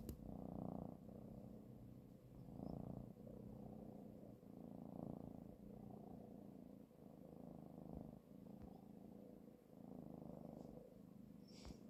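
A kitten purring quietly, the purr swelling and easing with each breath in and out, about once a second. A sharp click right at the start and a short, faint high sound near the end.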